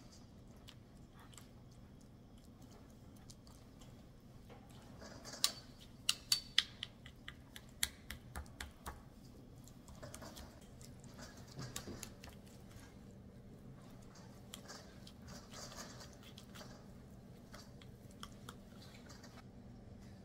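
Kitchen utensils and packaging handled while instant oatmeal is made: a quick run of about ten sharp clicks and taps starting about five seconds in, then scattered softer taps, over a steady low hum.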